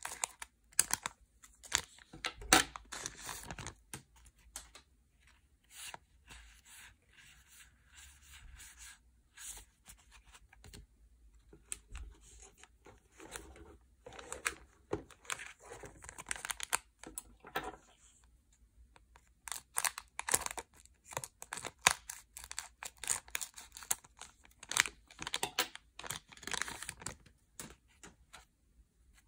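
Yu-Gi-Oh! booster packs being torn open by hand, with the foil wrappers crackling and crinkling in irregular bursts and a quieter spell about halfway through.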